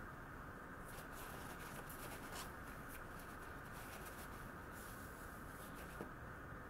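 Faint papery rustling and rubbing, a few soft strokes, as a paper towel wipes a knife blade clean, over a steady low background hiss.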